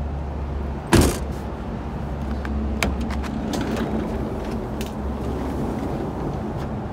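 A loud single thump about a second in, then a few light clicks and knocks as the van's door and cabin fittings are handled, over a steady low hum.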